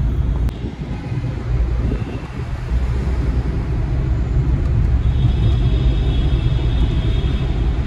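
Car driving in traffic, heard from inside the cabin: a steady low engine and road rumble.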